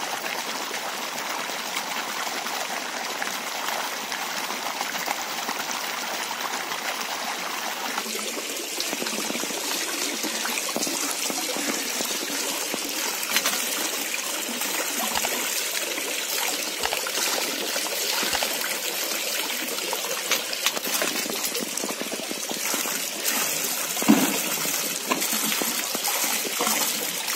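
Running water: a pipe pours a steady stream into a trout pond, then about eight seconds in it gives way to a closer trickle and splash of hose water running into a tray, with a few small knocks.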